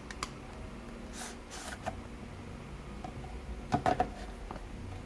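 A smartwatch's retail box being opened and handled: quiet scraping and rustling of the packaging, with a few sharp clicks a little under four seconds in.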